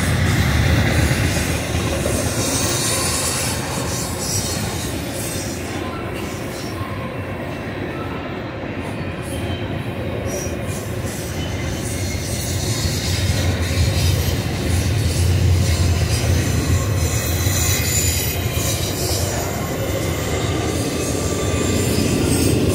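Double-stack intermodal well cars rolling past on a curve, a steady rumble of wheels on rail, with some faint high wheel squeal at times.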